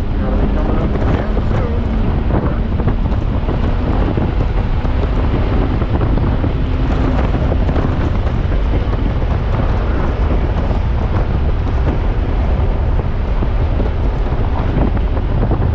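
Audi S5's supercharged V6 under acceleration on track, heard from inside the cabin under heavy wind and road noise on the microphone. The engine note climbs steadily and breaks off about halfway through, at a shift of the six-speed manual gearbox.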